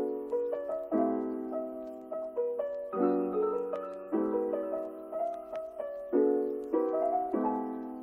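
Background piano music: soft chords struck about once a second, each left to ring and fade.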